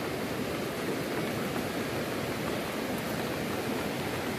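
A muddy, rain-swollen river flowing fast: a steady, even rush of water.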